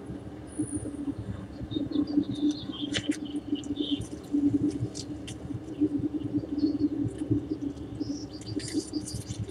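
Small birds chirping in short high calls, mostly in the middle and again near the end, over a steady low hum.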